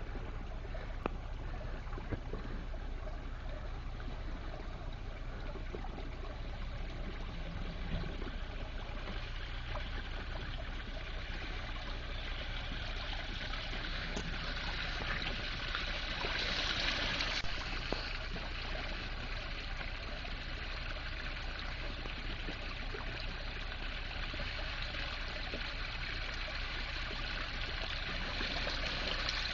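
Water running and trickling steadily through a toilet-built garden water feature, with a louder rush of water for a couple of seconds about halfway through.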